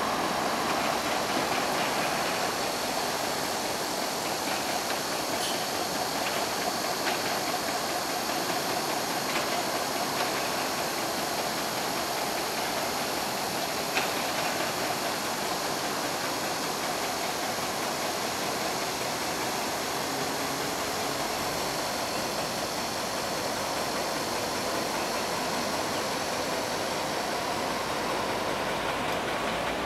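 EMD G16 diesel-electric locomotive's two-stroke V16 engine running steadily as it approaches on the yard tracks, under an even background hiss.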